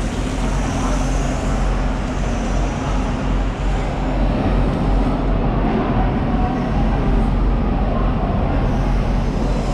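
Water from a rubber hose splashing onto a large tuna and the wet concrete floor, over a steady low background rumble.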